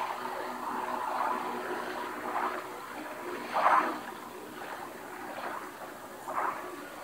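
Film underwater sound: a muffled wash of water with soft gurgling swells as free-divers swim downward, the strongest swell about halfway through.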